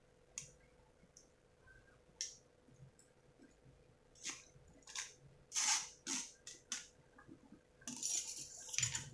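Cooked macaroni shaken from a metal mesh strainer into a pan of white sauce: a string of short taps and scrapes of the strainer against the pan, with a longer scrape near the end.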